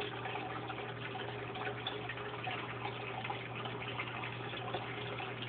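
Thick, creamy casserole mix pouring from a plastic bowl onto tater tots in a glass baking dish: a soft, steady trickle and patter of liquid.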